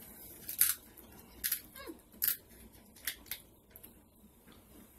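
Close-up king crab leg eating sounds: about five short, sharp crackling sucks and snips as meat is pulled from the shell and shell is cut or cracked.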